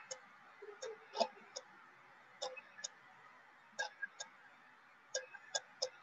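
Stylus tip clicking and tapping on a pen tablet while handwriting: short sharp clicks at irregular intervals, several close together near the end, over a faint steady hiss.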